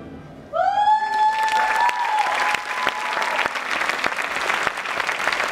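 Theatre audience applauding loudly, with one long shouted cheer from a single person rising in pitch about half a second in and held for about three seconds over the clapping.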